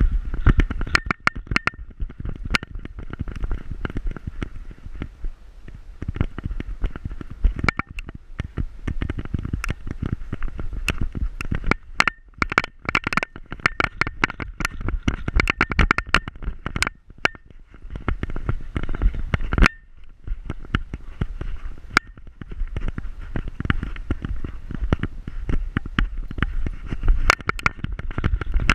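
Rubbing and knocking from an action camera strapped to a walking dog's back: a constant low rumble with many irregular clicks and rattles as the dog moves.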